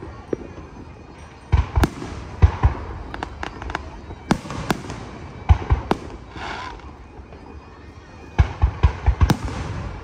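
Aerial fireworks shells bursting, a series of sharp bangs at uneven intervals, with a quick run of bangs near the end.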